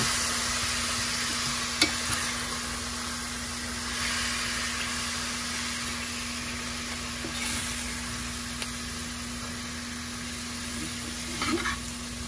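Chicken breast and fenugreek leaves sizzling in a stainless steel frying pan with a little added water, a steady hiss that slowly fades. A metal spoon stirs through them, knocking sharply against the pan about two seconds in and again near the end.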